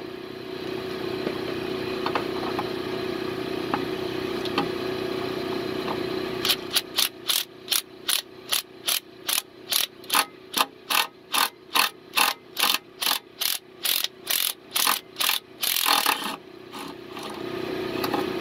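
Hand ratchet clicking in a steady rhythm, about two to three clicks a second for some ten seconds, as it turns out a broken exhaust manifold bolt by a nut welded onto its stub in a Chevrolet cylinder head. The clicks stop suddenly near the end.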